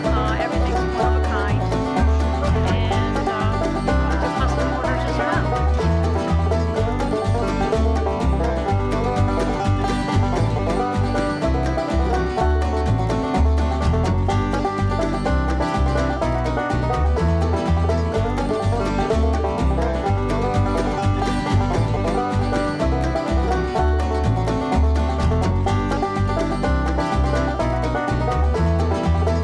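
Upbeat bluegrass-style music with plucked strings over a steady beat.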